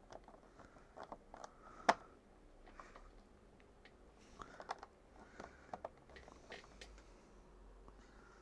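Small plastic building-brick pieces clicking and tapping as they are handled and fitted together: scattered light clicks, with one sharper click about two seconds in.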